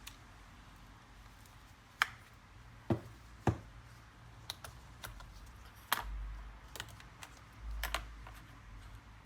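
Irregular sharp plastic clicks and taps from hands working on a laptop's case and parts, about a dozen in all, with two duller thumps about six and eight seconds in.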